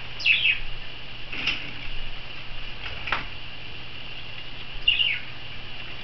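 Pet budgerigars chattering with a steady high warble. Two sharp falling chirps come near the start and about five seconds in. A peach-faced lovebird's wings flutter and splash briefly a couple of times in a shallow water bath.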